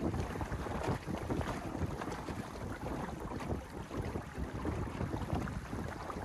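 Water rushing and splashing along the hull of a small wooden sailing skiff under way, in a constant run of irregular little splashes. Wind buffets the microphone with a low rumble.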